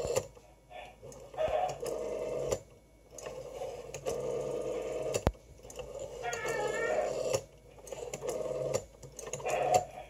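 Rotary telephone dial being wound round and let go, whirring back to rest several times in a row as a number is dialed, each return lasting about a second with a sharp click or two between digits.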